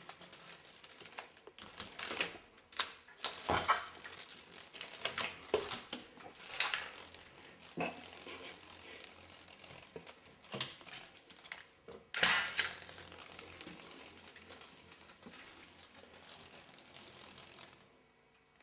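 Slatted window blinds rattling and clattering as a cat paws and scrambles at them, in a string of irregular clicks and scrapes. A louder clatter comes about twelve seconds in, then several seconds of continuous rustling that dies away near the end.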